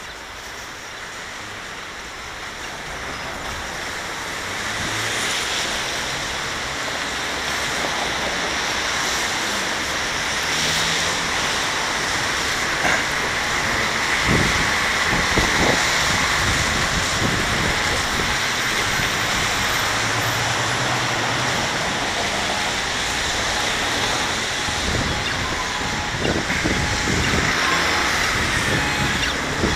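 City street traffic on wet roads: a steady hiss of tyres on wet pavement from passing cars and buses. It grows louder over the first several seconds.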